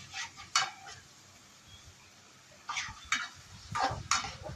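A spoon stirring dry moth beans in a stainless-steel pan, giving a few short scraping, rattling strokes. There are two strokes at the start, a pause of about two seconds, then a quick run of several more.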